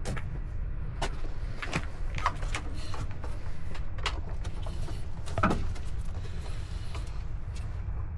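Scattered sharp clicks and knocks of parts being handled in an engine bay, as a wiring loom and its clips and clamp are refitted, over a steady low rumble. The loudest knock comes about five and a half seconds in.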